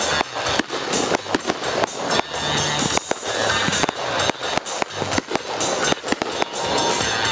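Aerial fireworks shells bursting in quick, irregular succession, many sharp bangs and crackles close together, with music playing under them.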